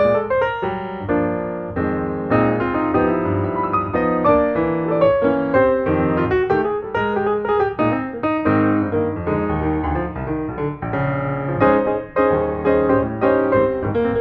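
Background piano music, a steady run of quick notes.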